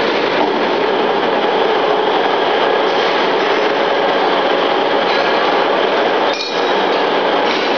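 Steady loud rushing mechanical noise around a safety valve test bench, with a short dip about six and a half seconds in.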